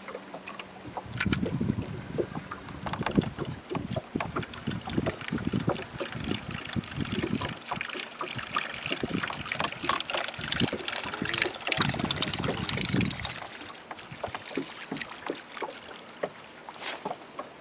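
Wind rumbling irregularly on the microphone of a small boat, with water sounds and scattered clicks and knocks of handling; a brighter hiss swells about two-thirds of the way through.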